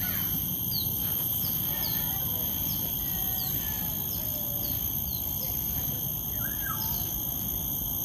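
Outdoor garden ambience: a bird gives a short falling chirp about once a second over a steady, high, multi-tone drone of insects, with a low background rumble underneath.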